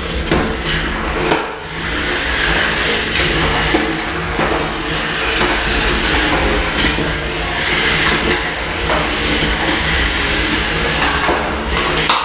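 Small remote-controlled combat robots' electric motors whining, rising and falling in pitch again and again over a steady hum, with a few sharp knocks of robots striking each other or the arena walls.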